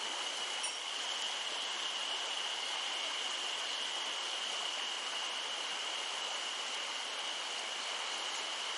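Mountain stream water rushing steadily, with a steady high-pitched hum over it.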